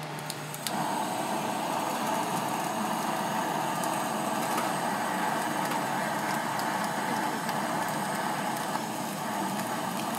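Handheld gas blowtorch burning with a steady hiss as its flame sears a slab of raw fish, coming on about a second in.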